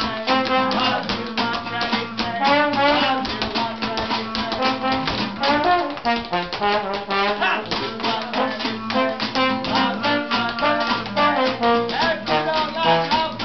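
Small acoustic hot-jazz band playing: trombone and clarinet lines over strummed rhythm guitar, with a dense, fast clicking rhythm from washboard, spoons and tap shoes.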